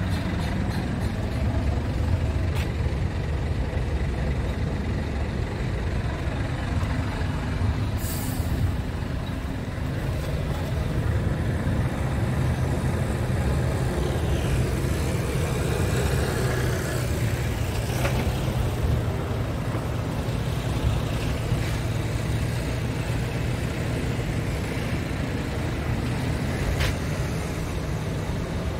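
Scania R580's V8 diesel engine idling steadily, with a short burst of compressed-air hiss about eight seconds in.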